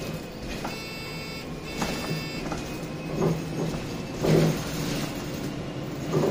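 MAN 18.240 single-deck bus with a diesel engine, running along the road, heard from inside the saloon as a steady low hum. A brief high whine sounds twice in the first half. Several sharp knocks and rattles from the body follow later, the loudest about two-thirds of the way through and at the very end.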